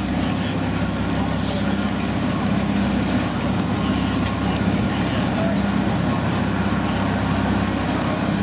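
Steady low mechanical hum of a running chairlift's drive machinery, holding one pitch throughout.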